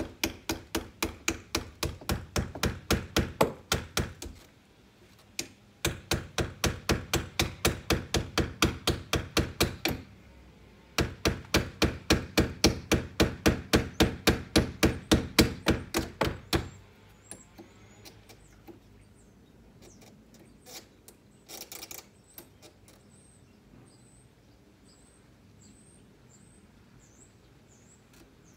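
Hammer driving nails into a window frame: quick, even blows at about four a second in three runs with short pauses between, stopping a little past halfway.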